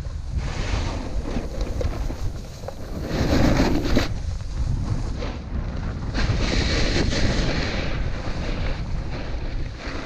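Wind buffeting the camera's microphone while a snowboard slides through deep powder snow, the hiss of the board in the snow swelling twice, about three and six seconds in.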